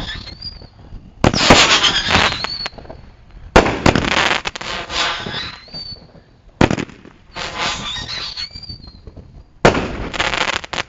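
Fireworks going off: four loud blasts two to three seconds apart, each followed by about a second of crackling, with sharp cracks and short high whistling tones in between.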